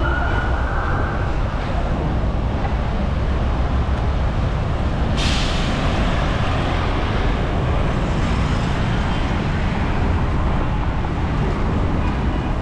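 Road traffic: a steady low rumble of engines and tyres. A high steady tone stops about a second in, and a sudden hiss starts about five seconds in and fades over a couple of seconds.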